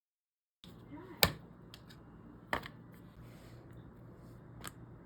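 Silence, then a low steady hum with a few sharp knocks or clicks, the loudest about a second in.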